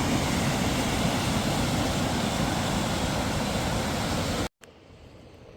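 Steady rush of a mountain creek's falling water that cuts off suddenly about four and a half seconds in, leaving a much quieter outdoor backdrop with a few faint ticks.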